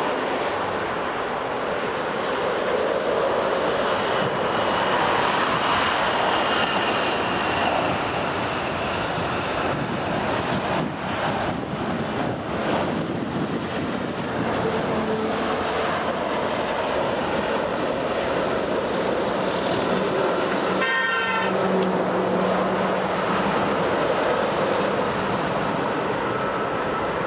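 Boeing 787 jet engines at takeoff thrust: a steady roar with a high whine that falls slowly in the first few seconds. About three quarters of the way through, a short horn-like toot sounds over the roar.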